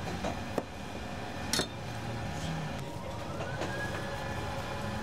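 Chef's knife cutting through cooked beetroot onto a plastic cutting board: a few sharp knocks in the first two seconds, over a steady mechanical hum. About three seconds in, a thin tone rises and then holds.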